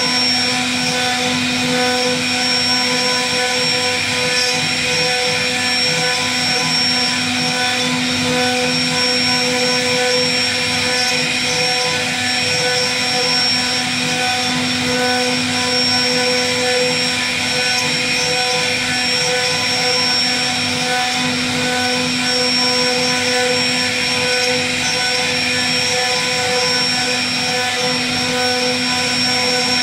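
CNC wood-carving router's spindle running steadily as its bit cuts a relief pattern into a wooden door panel: an even, unchanging whine over a constant noise of cutting.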